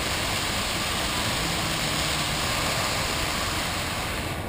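Bellagio fountain water falling back onto the lake: a steady rushing hiss that thins out near the end.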